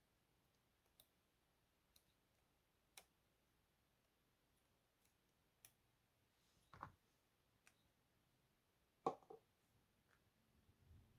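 Quiet desk-work sounds: scattered light clicks and taps from handling journaling materials, with louder taps about two-thirds of the way in and near the end.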